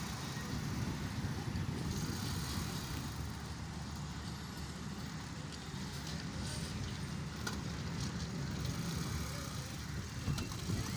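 Steady low rumble of a passenger train running along the track as it moves away.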